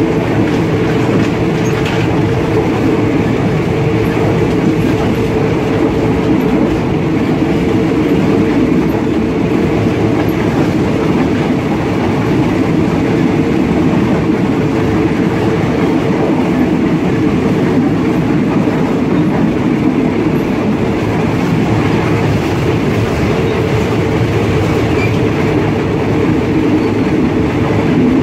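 Train running along the track: a loud, steady rumble of wheels on rails, heard from inside the carriage.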